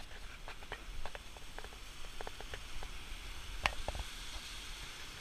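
Faint steady rush of a mountain stream and waterfall below, with a scattering of irregular light taps and clicks over it.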